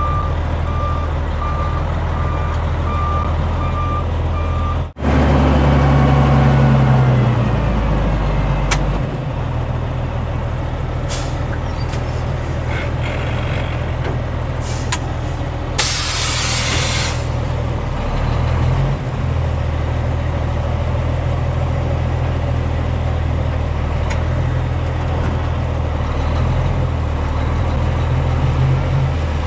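Dump truck backing up with its reverse alarm beeping, then the diesel engine revs up as the load of gravel is dumped. Partway through comes a burst of air hiss, then the engine runs on steadily.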